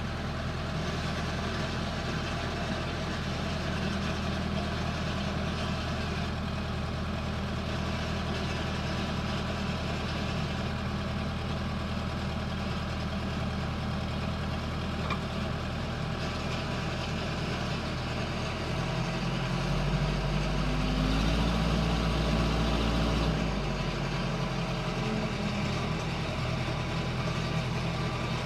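Case 580L backhoe's four-cylinder diesel engine idling steadily. About two-thirds of the way through it picks up, higher and louder for about four seconds, then settles back to idle.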